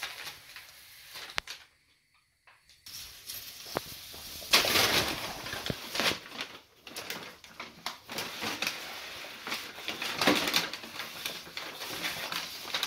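Packing paper crinkling and rustling in irregular surges as a cat paws, grabs and pounces on it. The rustling drops out briefly about two seconds in, then returns louder.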